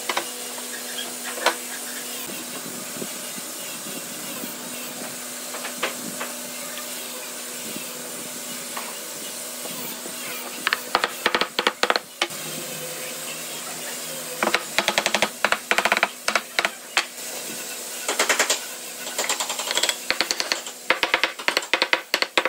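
Several bursts of rapid sharp tapping over a steady hiss and low hum.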